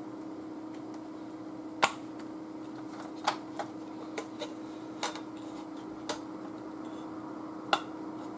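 Sharp plastic clicks and small knocks at irregular intervals, about eight in all and the loudest near two seconds in, as the spring-loaded plastic clips of a TV main-board heatsink are pressed home and the board is handled. A steady low hum runs underneath.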